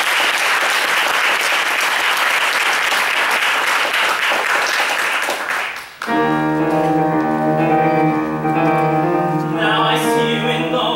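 Audience applauding, dying away about six seconds in; then a grand piano starts playing held chords.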